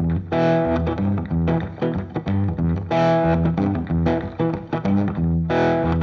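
Background music: a repeating melody of quick plucked notes over low bass notes.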